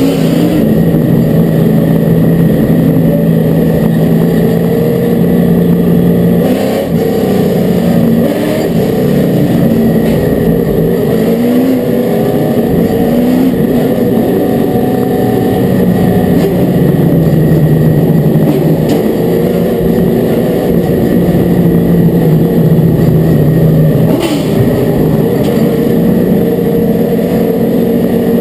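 Limited Late Model stock car's V8 engine at racing speed, heard from inside the cockpit, its pitch rising and falling again and again as the driver accelerates and lifts around the oval.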